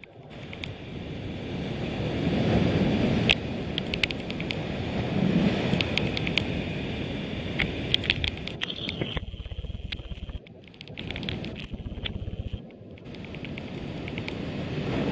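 Rough sea surging and washing over rocks and shingle, in slow swells of loudness, with wind on the microphone and scattered sharp clicks.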